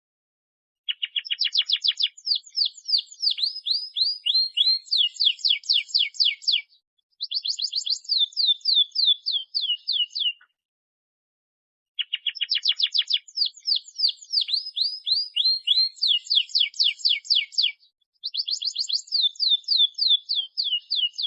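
Domestic canary singing long, fast trills: rapid runs of quick, high, downward-sweeping notes, with the phrases broken by pauses of about a second and a half.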